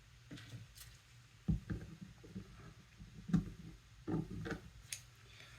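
Scattered light clicks and knocks from small parts and hand tools being handled, a few sharper taps about a second and a half in, past three seconds and around four seconds.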